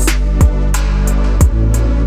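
Background music: an electronic track with a steady deep bass, with a booming drum hit about once a second and crisp cymbal strokes over it.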